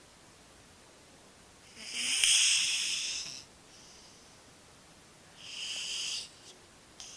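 A sleeping domestic cat snoring: two high, hissing breaths about three and a half seconds apart, the first louder and longer.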